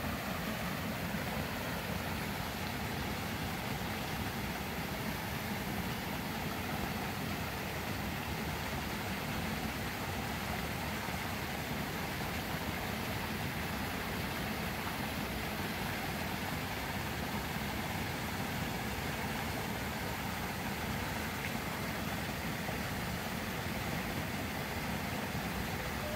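Steady rush of water pouring from pipe outlets and splashing into a fish pond, fed by a pump.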